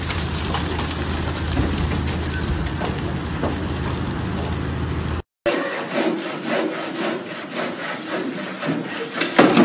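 Chainsaw cutting high up in a pine over a steady low engine hum. After a break, wooden planks creak and knock under a man's weight as he climbs onto a wooden picnic table, and a louder clatter starts right at the end.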